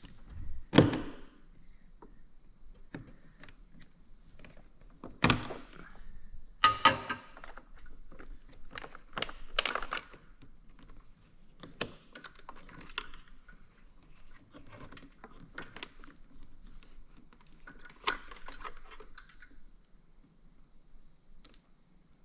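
Intermittent handling noises of small metal hardware and tools: sharp knocks with jingling, rattling clatter in between. The loudest knock comes about a second in, with more knocks and rattles scattered through, then it goes quieter near the end.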